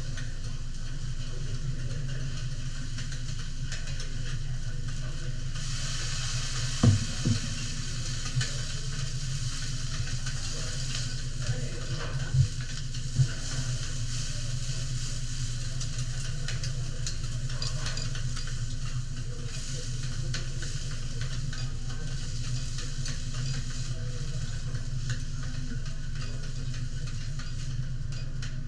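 Food sizzling on a teppanyaki griddle, the hiss growing louder about five seconds in, over a steady low hum. A few sharp clacks of a metal spatula and knife on the steel plate, most of them between about seven and thirteen seconds in.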